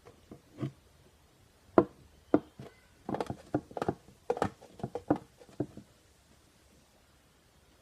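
Plastic Tupperware containers tapped and handled close to the microphone. A few soft taps and two sharper knocks lead into a quick run of clicks and knocks that stops with a second or two left.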